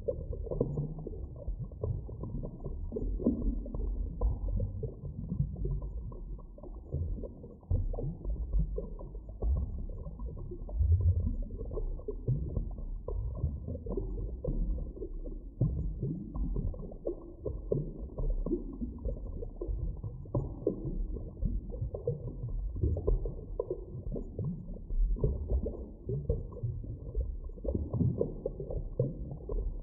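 Deep underwater ambience: a muffled, low rumble with irregular creaks and knocks, all of it deep in pitch with nothing bright above.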